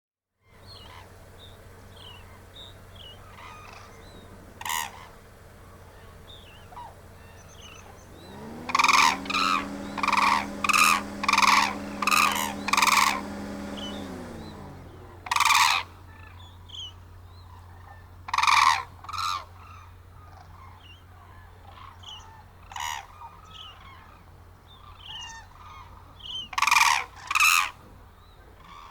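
Hooded cranes calling loudly: single calls at first, then a quick run of about seven loud calls in the middle, then scattered single and paired calls, over fainter chatter from many birds. A steady hum comes in, holds and fades away under the run of calls.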